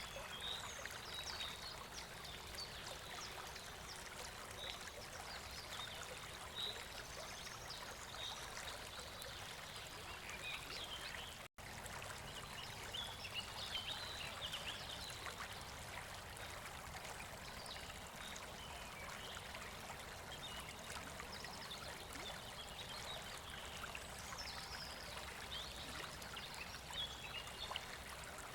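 River water flowing steadily, broken once by a brief moment of silence about eleven seconds in.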